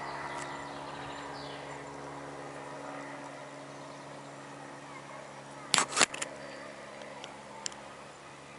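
Cessna light propeller plane flying overhead, its engine a steady drone that slowly fades as it passes. Two loud sharp clicks about six seconds in.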